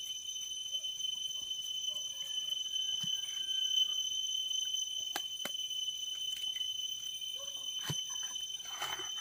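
Insects droning in the undergrowth, a steady high-pitched tone, with scattered light clicks and taps of handling and a burst of leaf rustling near the end.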